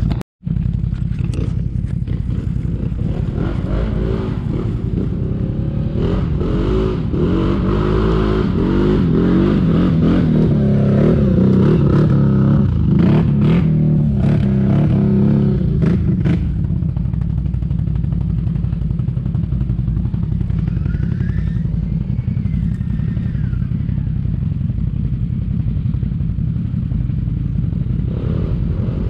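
CFMoto 850 XC ATV's V-twin engine revving up and down under load as it climbs a steep forest trail, with the machine clattering over rough ground. From about halfway the engine runs more steadily and the clatter stops.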